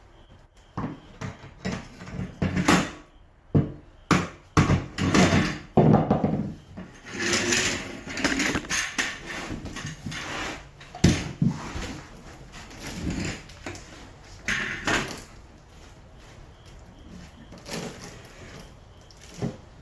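Irregular wooden knocks, thumps and scrapes of floor lumber being handled, with the strongest ones coming in the first seven seconds and again around eleven and fifteen seconds in.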